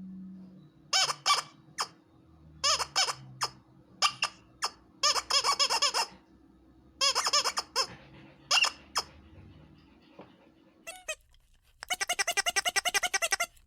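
Squeaky rubber dog toy squeezed repeatedly: short clusters of high squeaks with pauses between them, then a fast, even run of squeaks near the end.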